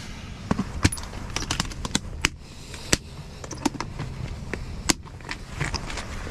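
Small metal lock parts and screws clicking and rattling as they are handled, with irregular sharp ticks, a few louder, about one second, three seconds and five seconds in.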